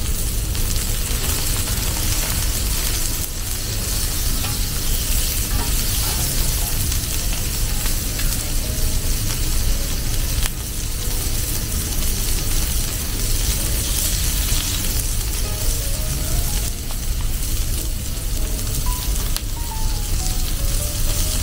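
Pieces of fish sizzling steadily in oil on a hot ridged steel griddle.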